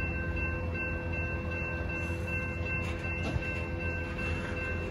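Freight train of covered hopper cars rolling through a grade crossing: a steady low rumble of wheels on rail, with one sharp knock a little past three seconds in. Over it the crossing bell rings steadily.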